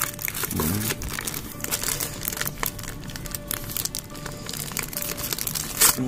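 Plastic courier mailer bag crinkling and rustling as it is pulled and torn open by hand, with a louder rustle near the end as the case inside is drawn out. Background music plays underneath.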